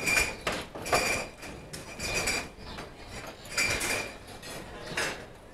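Irregular sharp metallic clinks and knocks, several of them ringing briefly at a high pitch.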